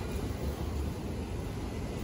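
Freight train of autorack cars rolling past: a steady low rumble.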